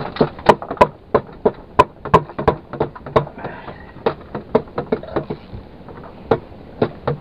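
A run of sharp, irregular knocks, about three a second and varying in loudness.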